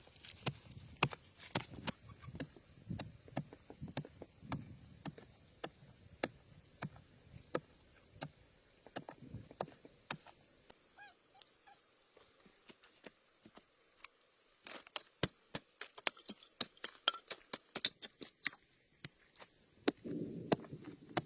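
Irregular sharp taps and knocks, many in quick succession, thinning out in the middle and picking up again; a short low rumbling noise comes near the end.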